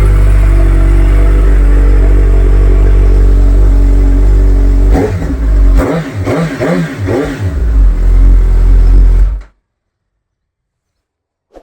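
Suzuki GSX-S1000 inline-four running loud through a newly fitted Black Widow full exhaust system with the baffle in. It idles steadily, then is revved in several quick blips about five seconds in, held high briefly, and the sound cuts off abruptly near the end.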